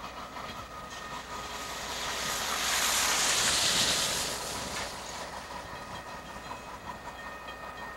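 Diesel locomotive rolling slowly past at close range. A loud hiss swells and fades about three to four seconds in, over the steady rumble of the passing locomotive.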